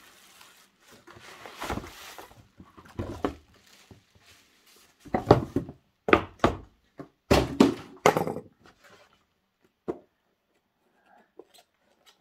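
Bubble wrap and cardboard rustling as a packed item is pulled out of a shipping carton, followed by several loud dull thunks about five to eight seconds in as a cardboard product box is knocked and set down on a wooden table, then a few faint light taps.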